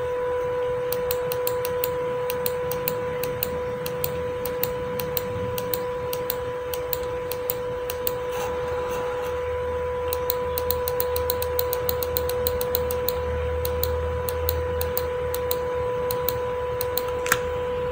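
Stepper motor on a microstep driver running at a constant speed, giving a steady whine with a higher overtone. Quick, irregular sharp ticks sound over it, one louder tick near the end.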